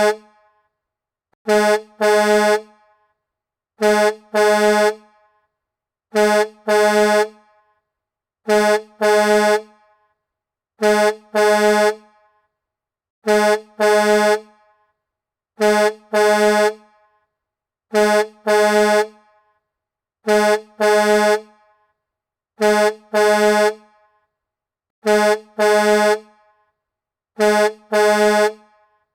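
Semi-truck air horn sounding in a repeating double blast, a short toot followed at once by a longer one, about every two and a half seconds; the pair comes around twelve times.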